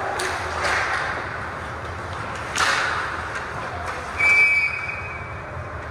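Ice hockey play: sticks and puck knocking, with a sharper crack and a hiss of ice about two and a half seconds in. Then a referee's whistle blows one steady high blast for about a second, stopping play.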